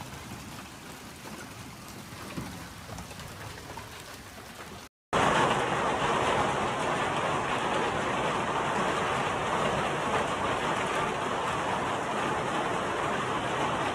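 Hailstorm: hail and heavy rain pelting down as a steady hiss. A brief cut about five seconds in, after which the downpour comes back much louder and denser.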